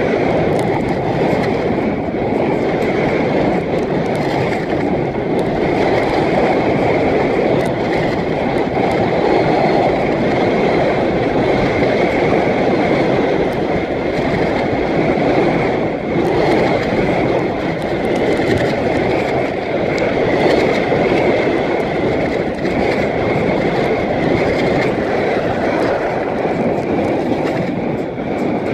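Steady, loud rushing wind noise on a phone microphone muffled inside a life-jacket pocket, with water moving under a wingfoil board in strong wind.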